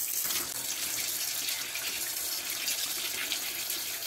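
Kitchen tap running steadily, its stream splashing onto fish steaks on a plate in a stainless steel sink as the fish is rinsed by hand.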